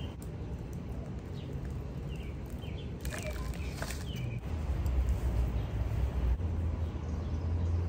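Low rumble of distant city traffic, growing louder about halfway through, with a few short bird chirps in the middle.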